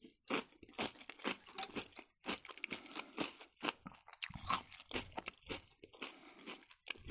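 Close-miked chewing of a mouthful of napa-cabbage kimchi: a steady run of crisp, wet crunches, about three a second.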